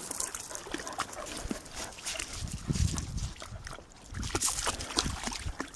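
Dogs moving about close by, with scattered clicks and rustling.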